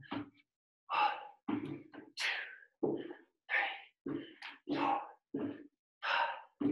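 A man's voice and hard breathing in short, breathy bursts, about two a second, under the exertion of holding a plank.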